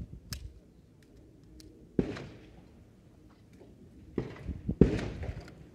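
Glock 19 9mm pistol firing at steel plates: a single shot about two seconds in, then a fast string of three or four shots near the end, the loudest among them.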